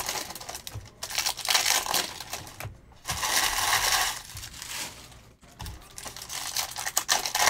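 Foil trading-card pack wrappers crinkling and tearing as packs are opened, in several bursts, with cards handled and set down onto stacks in between.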